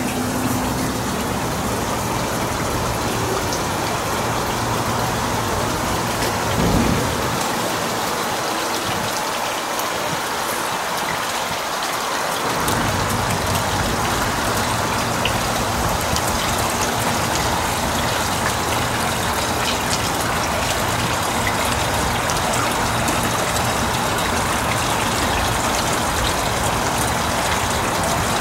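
Steady rush of running water from a backyard water feature, with a low rumble underneath that drops away for several seconds partway through.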